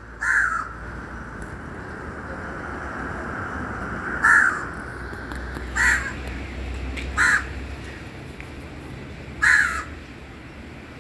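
A crow cawing five times, each caw short and loud, spaced a second or two apart, over a steady low background hum.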